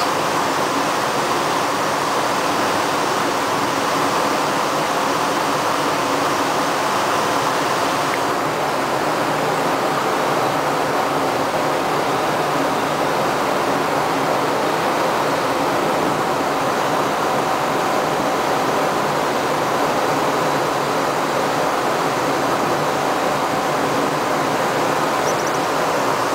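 Steady rushing of water pouring into a Panama Canal lock chamber as it floods, with a faint steady hum beneath it.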